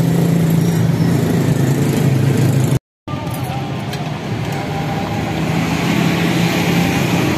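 Steady motor-vehicle engine hum with street noise, broken off briefly about three seconds in.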